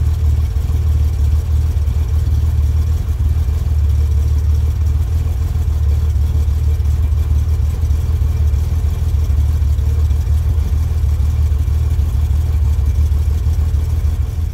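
1964 Chevrolet Corvair's air-cooled flat-six idling steadily with a valve cover off, while its rocker arms are adjusted to set the hydraulic valve lash.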